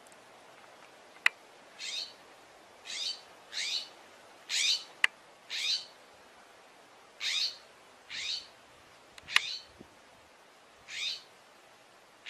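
A bird calling over and over: about ten short notes, each falling in pitch, roughly a second apart. A few sharp clicks fall between them.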